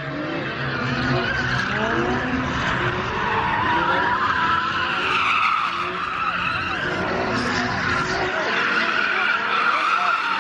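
A pickup truck's tyres squealing steadily on asphalt as it spins donuts, with its engine revving up and down underneath.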